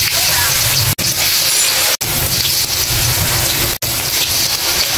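Battered vegetable fritters frying in hot oil in a wok: a steady sizzling hiss, broken three times by brief silent gaps.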